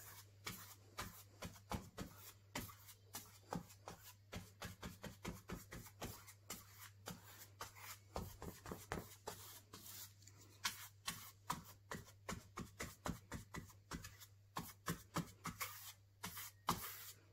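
Paintbrush brushing paint across a canvas in quick, faint, repeated strokes, about three or four a second, with a steady low hum underneath.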